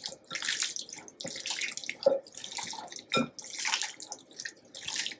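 Wet squelching and smacking of raw chicken thighs being massaged with oil and spice rub by a gloved hand in a glass bowl, in irregular strokes with a few sharper slaps.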